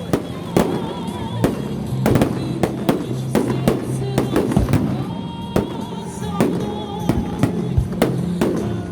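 Fireworks exploding in a rapid, irregular series of sharp bangs, about two a second, with music playing underneath.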